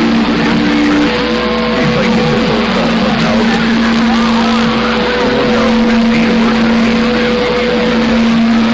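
Icom IC-7300 receiving CB channel 6 (27.025 MHz AM), putting out loud hissing static with steady heterodyne whistles from carriers on the channel. One whistle stops about a second in, and garbled, overlapping voices squiggle underneath.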